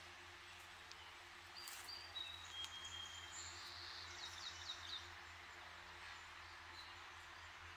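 Songbirds singing in the background: a few high whistled notes about two seconds in, followed by a quick run of repeated notes. Under them runs a steady low hum of distant road traffic.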